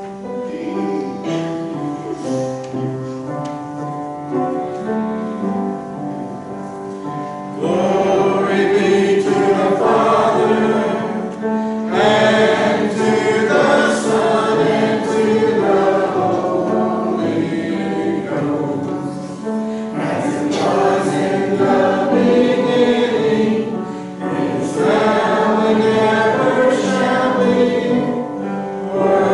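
Church congregation singing a hymn together with musical accompaniment. It starts more softly and swells louder about eight seconds in.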